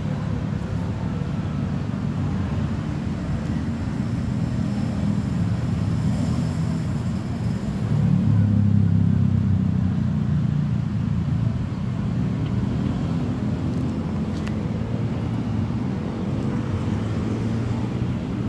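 Steady low rumble of a motor vehicle engine running nearby, swelling for a couple of seconds near the middle.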